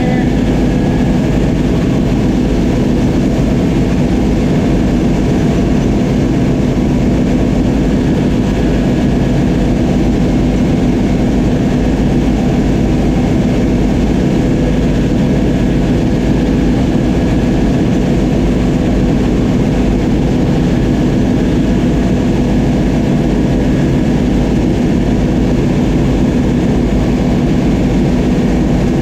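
Oliver 7300 combine running steadily while harvesting wheat: its engine and threshing machinery make a loud, unbroken drone with an even hum.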